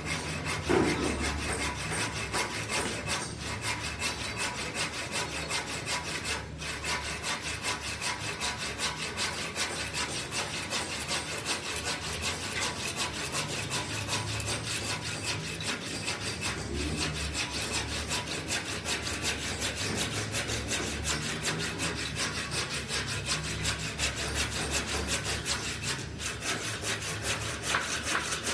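Handsaw crosscutting a wooden door jamb in quick, steady back-and-forth strokes, trimming 4 cm off its length. There is a brief knock about a second in.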